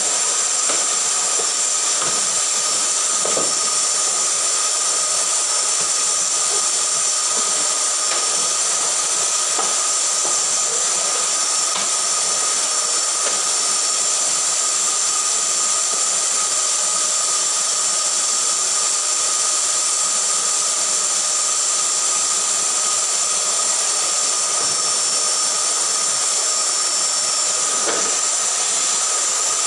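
Canister vacuum cleaner running steadily: a high whine over an even hiss.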